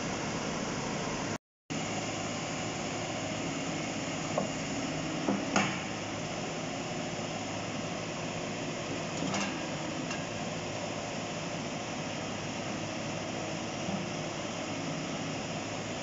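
Rushing floodwater and a JCB tracked excavator's engine running steadily, with a few sharp knocks as the bucket strikes steel sheets and debris in the water, the loudest about five and a half seconds in. The sound cuts out for a moment about a second and a half in.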